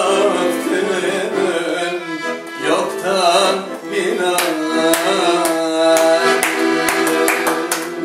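Accordion playing a Balkan kyuchek (çoček) tune while a man sings over it. From about halfway in, sharp hand claps join in with the beat.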